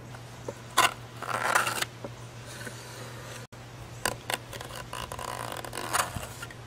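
Utility knife slicing through insect screen mesh along the edge of a wooden frame: short rasping cuts and a few sharp clicks.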